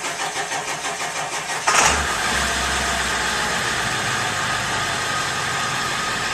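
Diesel engine cold start: the starter cranks in quick, even pulses for under two seconds, then the engine catches with a sudden loud burst and settles into a steady idle.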